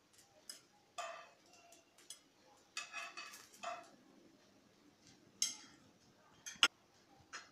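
Metal tongs clinking against a nonstick frying pan and a ceramic plate as fried eggplant slices are lifted out and set down: a series of short, ringing clinks, with one sharp clink near the end.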